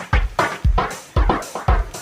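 Background music with a steady electronic drum beat, about two kick-drum beats a second.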